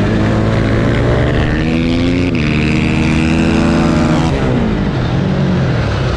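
Supermoto motorcycle engine at race pace, heard onboard: the pitch climbs under throttle, drops sharply about two seconds in at an upshift, climbs again, then falls away near the end as the throttle is closed for a corner. A steady rush of wind runs underneath.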